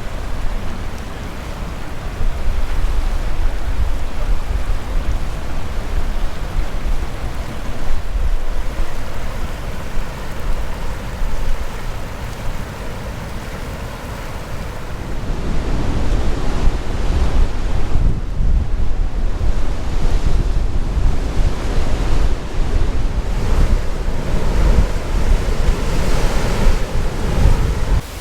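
Rushing Tuolumne River whitewater, a steady roar of water, with wind buffeting the microphone; the rush grows louder about halfway through.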